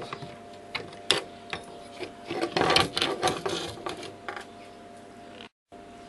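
Pliers levering and snapping parts off a washing machine motor-drive circuit board: a string of sharp clicks and cracks, with a burst of crunching plastic about two and a half seconds in.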